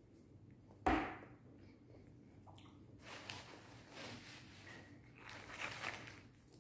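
A single dull thump about a second in, then paper burger wrapper rustling and crinkling as it is handled.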